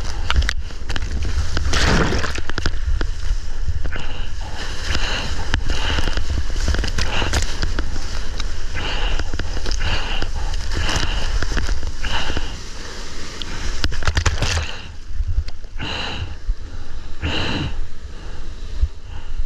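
Water splashing and sloshing right against a GoPro as a surfer paddles a surfboard, each arm stroke a short splash, often about once a second. Water and wind on the microphone make a steady low rumble underneath.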